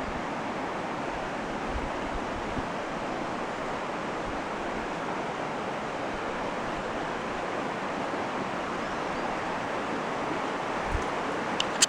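Steady rushing of the Broad River's water, an even hiss-like noise, with a couple of short clicks near the end.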